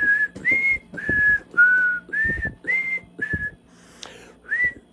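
A person whistling a tune: about eight short, clear notes that step up and down in pitch, with a brief pause before the last one.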